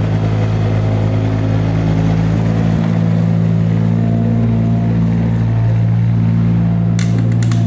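Steady, engine-like low motor hum that holds one pitch throughout. A run of rapid clicking, like a gear ratchet, starts near the end.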